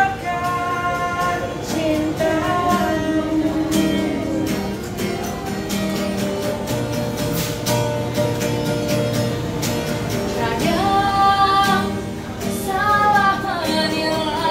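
A woman street singer singing to a strummed guitar accompaniment. Her sung phrases are clearest at the start and again from about ten seconds in, with the guitar carrying on between them.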